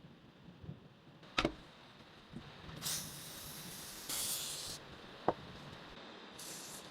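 Three short hissing bursts of spray, each under a second, with two sharp clicks, one before the first burst and one between the second and third.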